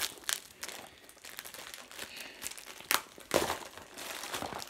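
Packaging crinkling and clicking as it is handled, in irregular crackles with two louder snaps about three seconds in.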